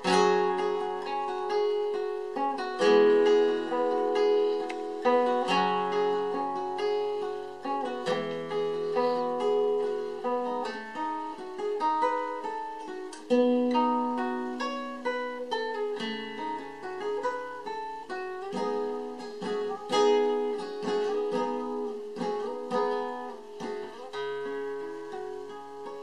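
Nylon-string classical guitar fingerpicked in an instrumental passage, single notes and chords ringing and dying away. It starts with a sudden loud chord and gets quieter near the end.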